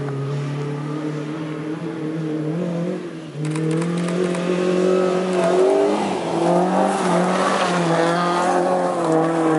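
A small hatchback driven hard on a gravel course, its engine note repeatedly rising and falling as the driver revs and lifts through the turns. About three and a half seconds in it gets suddenly louder, and the hiss of tyres sliding on gravel joins the engine as the car comes close.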